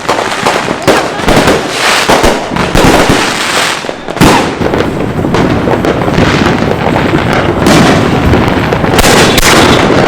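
Fireworks crackling and popping in a dense rapid run, with a sharper bang about four seconds in.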